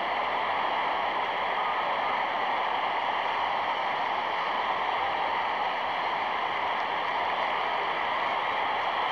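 Steady noise of a large football stadium crowd, heard muffled and hissy through an old film soundtrack.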